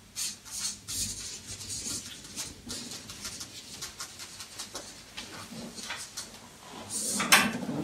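Scattered small clicks and light rustling, with a louder rustle near the end.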